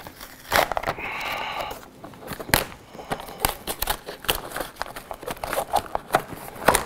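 Hard plastic transport case for a DJI Matrice 210 being opened by hand: a string of clicks, knocks and rattles from its latches and lid, with a short scraping rub about a second in.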